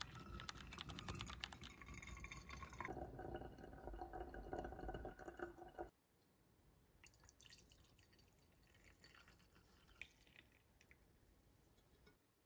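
Hot water poured into a stainless mesh pour-over filter, with coffee trickling into the glass carafe below as a steady stream with a shifting pitch. About six seconds in it cuts off suddenly, leaving only the faint sound of coffee being poured from the carafe into a ceramic mug.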